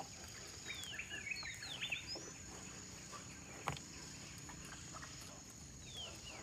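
Riverside forest ambience: a steady high insect drone with birds calling in short sweeping chirps during the first couple of seconds and again near the end, and a single knock about three and a half seconds in.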